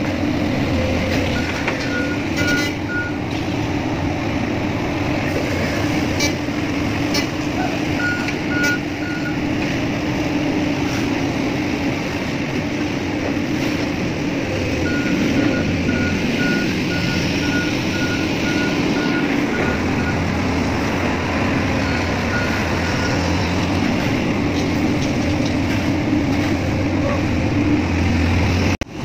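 Heavy diesel engine of a magnetic excavator running steadily, with a warning alarm beeping in several short runs of high beeps, about two a second. A few sharp clicks come in the first nine seconds.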